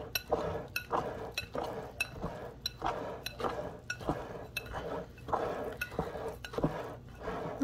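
A hand mixing a crumbly vital wheat gluten dough in a ceramic bowl, squeezing and tossing it in a quick run of short rubbing, scraping strokes, about three a second, with the odd knock against the bowl.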